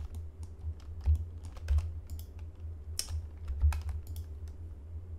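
Computer keyboard keys being pressed in an irregular run of taps, some strokes landing with a dull thud.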